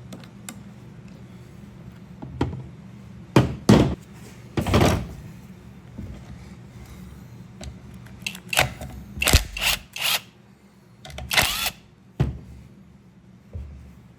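Hand tools and chainsaw parts clattering and knocking on a workbench while a Stihl 020 chainsaw is taken apart: a series of short knocks and scrapes, bunched around four seconds in and again around nine to twelve seconds in.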